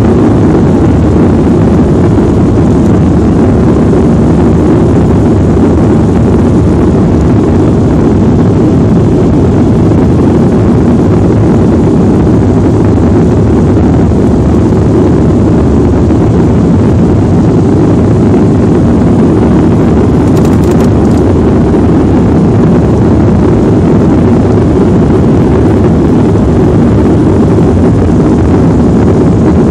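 Jet airliner taking off, a loud steady rumble of engine and airflow noise that holds level throughout.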